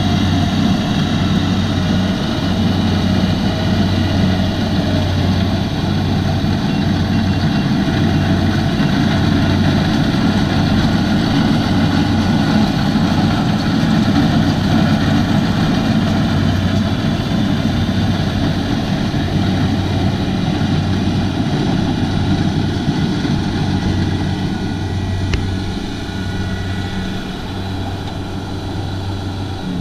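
Kubota DC-70 combine harvester's diesel engine running steadily under load, easing slightly quieter over the last several seconds. A single sharp click comes about 25 seconds in.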